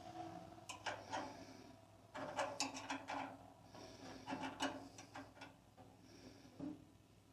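Irregular clicks and knocks in small clusters as metal parts are handled and fitted: a ball bearing guide block being put onto a 14-inch bandsaw.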